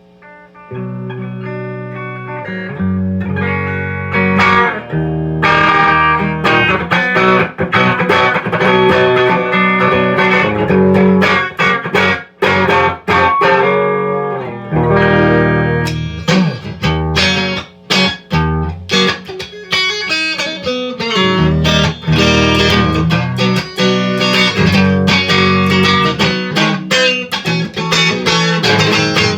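Electric guitar played clean on its DiMarzio X2N bridge humbucker through a Marshall Origin 20 valve amp: picked single notes and chords, starting softly and getting louder about three seconds in.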